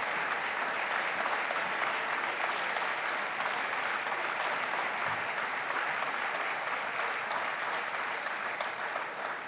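Large audience applauding steadily, a dense patter of many hands clapping that eases slightly near the end.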